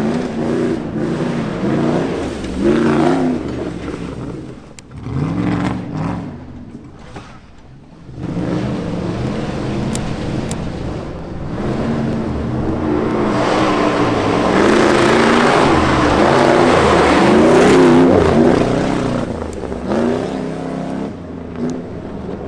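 Jeep Grand Cherokee ZJ's 5.2-litre V8 revving up and down repeatedly as it is driven hard, with a quieter lull a few seconds in. A broad rushing noise grows louder through the second half.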